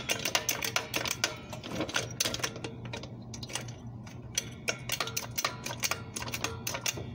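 Rapid, irregular mechanical clicking and light rattling, several clicks a second, over a steady low hum.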